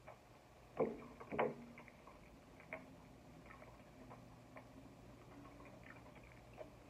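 A person eating a chicken wing close to the microphone: faint wet chewing and small lip-smacking clicks, with two louder mouth sounds about a second in.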